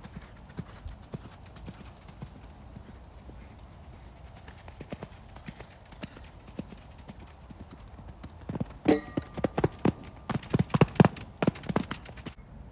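A horse's hoofbeats on sand arena footing, faint at first, then louder for the last few seconds as the horse comes nearer.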